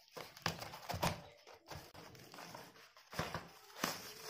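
Handling noise from a cardboard retail box being opened and a bubble-wrapped selfie stick being pulled out: irregular rustling and crinkling of plastic wrap and scraping of cardboard, louder in two patches, near the start and again near the end.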